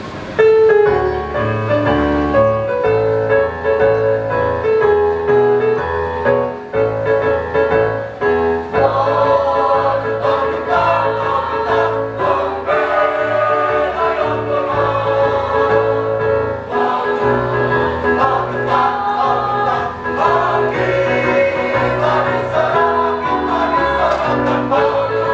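A choir singing in several parts over an accompaniment with a steady bass line, starting suddenly about half a second in.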